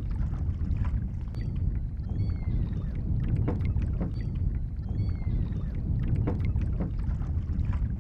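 Gulls giving short, slightly falling cries several times over a steady low rumble of wind and water around a kayak, with a few light knocks.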